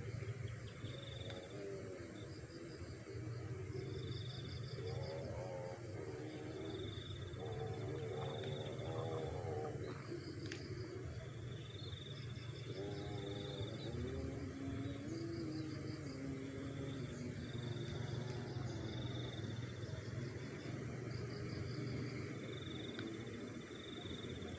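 Crickets and other insects chirping in repeated short trills over a steady high insect drone. Fainter pitched sounds come and go in the middle.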